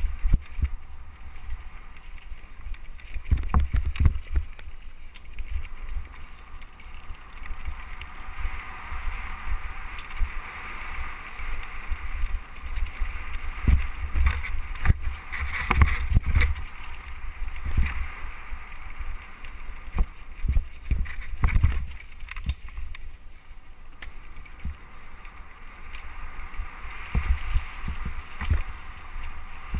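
Mountain bike ridden fast down a leaf-strewn dirt singletrack: a steady hiss of tyres over dry leaves and dirt, with frequent deep thumps and knocks as the bike and the camera on it jolt over bumps.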